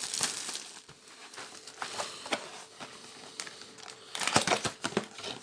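Plastic shrink wrap crinkling and crackling as it is stripped from a cardboard booster box, with the box handled. A louder cluster of crinkles and knocks comes about four seconds in.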